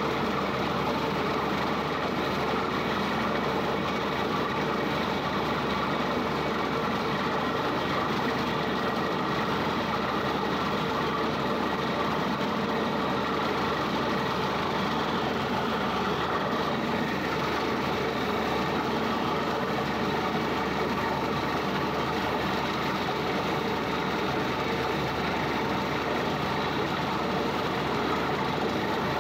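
Borewell drilling rig running steadily while drilling: the loud, even noise of the rig's engine and compressor.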